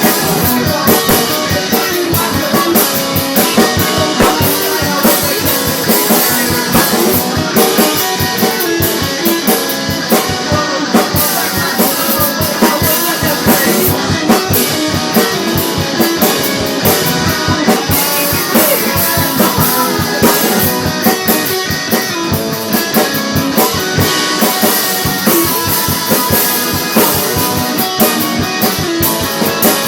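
A band's demo recording of a song: drum kit and guitar playing together at a steady beat.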